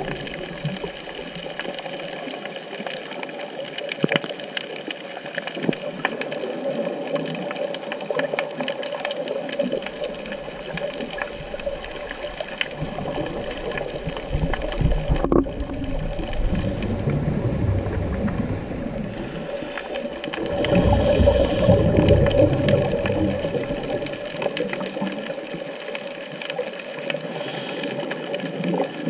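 Underwater ambience: a steady hum with a constant scatter of fine crackling clicks. A louder low rumble of moving water swells about two-thirds of the way through.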